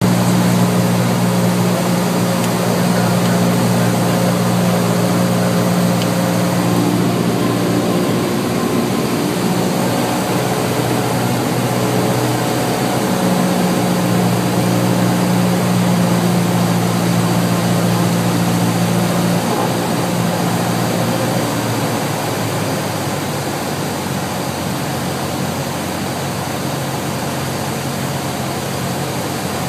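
Cessna 172's piston engine and propeller droning steadily, heard inside the cockpit with the rush of airflow, on final approach to land. The drone drops and fades over the last third.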